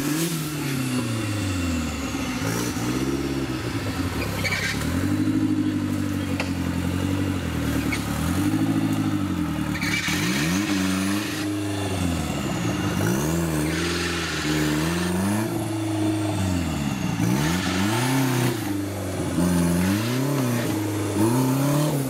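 Engine of a modified off-road 4x4 competition truck revving up and down over and over as it crawls and climbs through rough ground. The pitch rises and falls every second or two, with short bursts of hiss in between.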